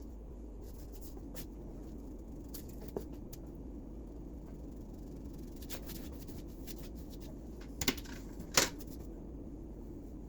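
Light handling clicks and taps from painting work over a steady low background hum, with two sharper short knocks about eight seconds in.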